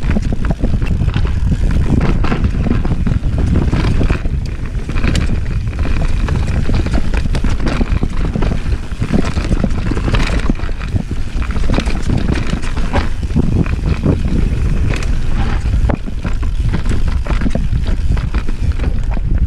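Mountain bike descending a dirt trail at speed: a heavy, steady rumble of wind buffeting the microphone and knobby tyres on dirt and roots, broken by frequent sharp clicks and knocks from the bike's chain and suspension rattling over bumps.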